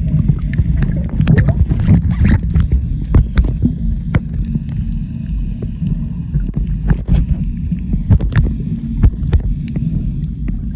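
Motorboat running under way: a steady low engine rumble and hum, broken by frequent sharp slaps of water against the hull.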